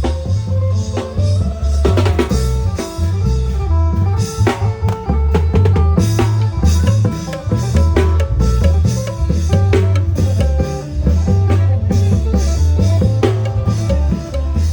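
Klong yao band (Thai long drums) playing procession music through an amplified sound system: drums beating over a heavy, pulsing bass line, with a melody above.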